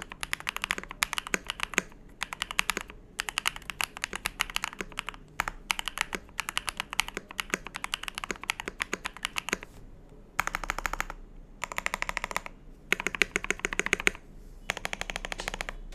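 KBD67 Lite mechanical keyboard with Akko Cream Black linear switches and Akko gradient grey keycaps being typed on in quick bursts of clacking keystrokes. From about ten seconds in, this changes to four short runs of very rapid, tightly packed keypresses.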